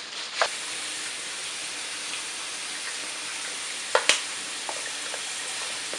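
Cream and Dijon mustard sauce simmering in a nonstick skillet while it thickens, a steady sizzling hiss. A sharp click comes about half a second in and two more close together around four seconds in.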